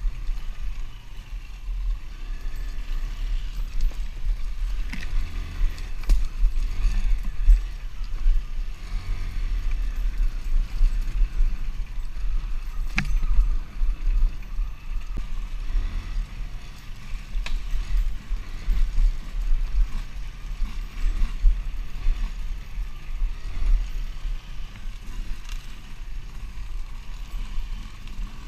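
Motocross dirt bike engine revving up and down as it is ridden over a rough dirt trail, heavily buffeted by wind on the onboard camera's microphone. A few sharp knocks from the bumpy ground, the clearest about halfway through.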